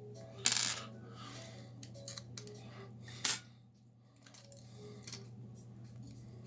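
Small clicks and a scrape of metal and plastic parts being handled while a smartphone is taken apart, with a sharp click a little over three seconds in. Faint background music plays underneath.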